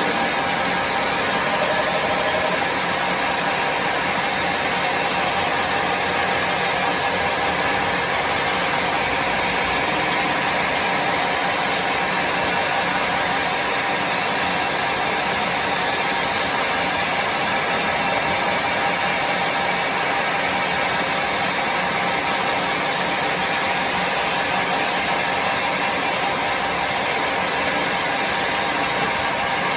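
An engine running steadily at a constant speed, with an even drone that does not change.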